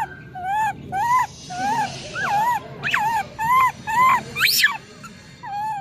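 Infant macaque crying in a run of short rising-and-falling coo calls, about two a second, building to a sharp high squeal about four and a half seconds in, with one more call near the end. This is the distress crying of an infant macaque being refused the nipple by its mother during weaning.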